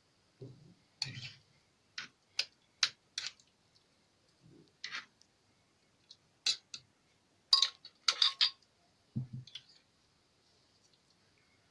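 Hard kitchen items being handled: a string of sharp, irregular clicks and taps, with a few dull thumps, the loudest taps coming in a cluster about seven to eight and a half seconds in.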